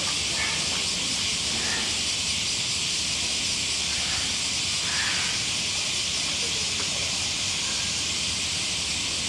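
Steady high-pitched hiss at an even level, with faint voices underneath.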